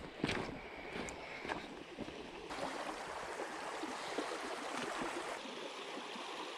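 Shallow creek water running over rocks: a steady rush and trickle, a little louder from about two and a half seconds in.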